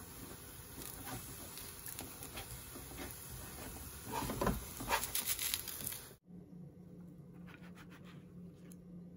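Thin pancake frying in a non-stick pan: a steady sizzle with small pops, then a run of louder knocks and scrapes from the pan and plate about four to six seconds in. It cuts off suddenly, leaving a quieter low hum.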